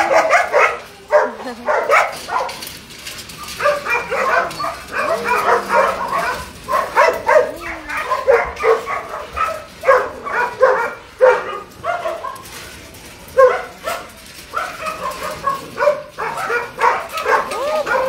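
Several shelter dogs barking at once, short barks following one another in quick succession, with a few whines sliding in pitch between them.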